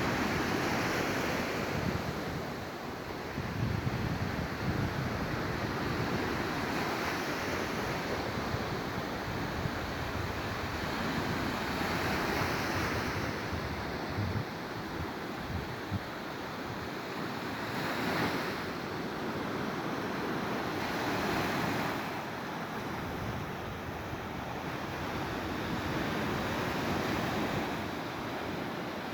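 Black Sea waves washing onto the shore, the surf swelling and fading every few seconds, with wind rumbling on the microphone.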